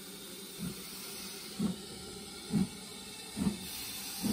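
BR Standard Class 4 steam tank locomotive pulling away, with four exhaust chuffs about a second apart that come slightly faster as it gathers speed. A steady hiss of steam runs underneath.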